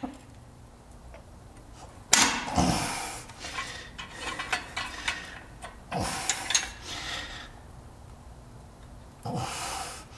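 Metal scraping and clinking at an air disc brake caliper as the brake pad retaining clip is worked into place by hand, in three short bursts with light clicks between and pauses of quiet.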